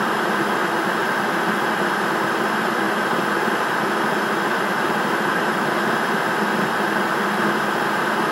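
Steady hiss and rumble of a videocassette playing back. The noise stays even throughout, with no distinct events.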